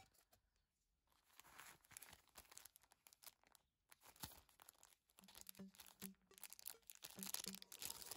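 Faint crinkling and crackling of sticker sheets and their packaging being handled, in many small irregular crackles.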